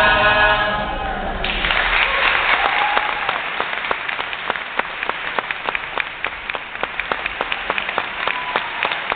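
Group singing of a capoeira song, which stops abruptly about a second and a half in. Audience applause follows, with many sharp individual claps standing out.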